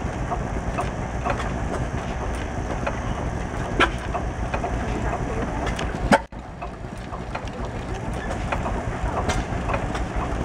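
International Harvester single-cylinder stationary gas engine running, its heavy flywheels turning, with a steady rhythmic clicking and clatter from the valve gear over a low rumble. Louder snaps come about four and six seconds in.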